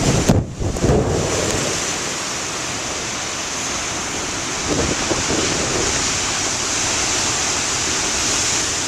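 Heavy storm surf from nor'easter-driven waves breaking and washing, a steady rushing noise. Wind buffets the microphone in gusts during the first second, and the surf swells again about five seconds in.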